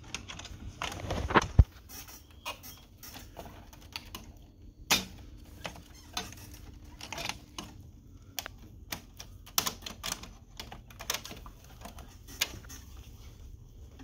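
Irregular small clicks and taps of a screwdriver tip and gloved hands against a laser printer's plastic and sheet-metal parts. A sharp click comes about one and a half seconds in and a louder knock about five seconds in.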